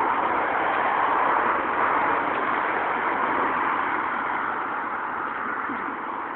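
Road traffic passing: a steady rush of tyre and engine noise that swells during the first two seconds and slowly fades.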